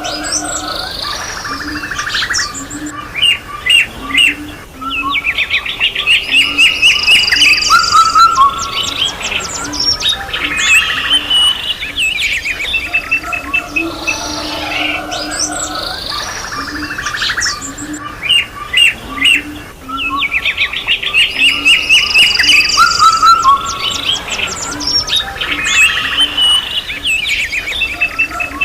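Several songbirds singing together, a dense mix of chirps, fast trills and whistled phrases, with short low notes underneath. The same stretch of birdsong comes round again after about 16 seconds, as in a looped recording.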